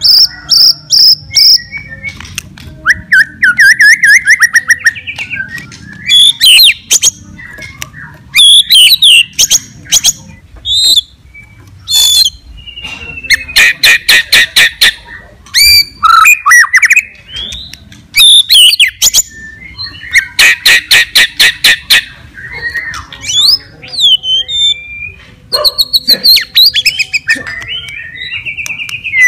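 White-rumped shama (murai batu) singing continuously in full 'gacor' song: loud, varied phrases of clear whistles and gliding notes mixed with fast rattling series of repeated notes.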